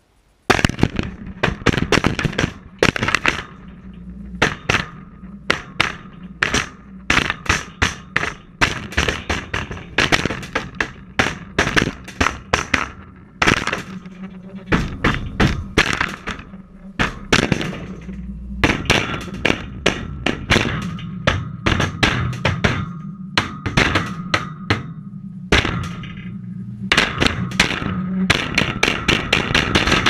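A dishwasher being struck over and over, heard from inside its tub: irregular blows, several a second, coming thicker near the end.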